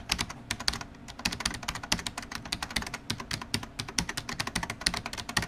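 Computer-keyboard typing sound effect: quick, irregular key clicks in a steady run, matching on-screen text being typed out letter by letter. The clicking cuts off suddenly at the end.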